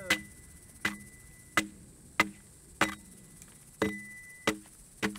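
An axe chopping into a felled log, about eight evenly paced strokes at roughly one every 0.7 s. Each stroke is a sharp chop with a brief ring after it. The strokes are taking the bark off the log to show the wood beneath.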